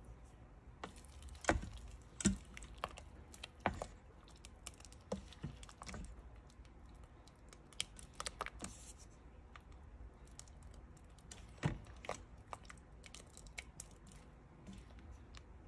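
A silicone spoon stirring thick lentil curry in a stainless steel Instant Pot inner pot, making irregular clicks and knocks against the pot, a few of them louder.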